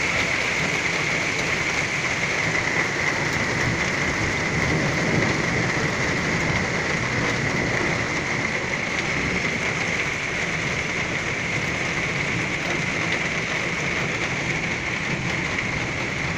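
Torrential rain pouring steadily in an even, unbroken hiss, with a low rumble of thunder underneath.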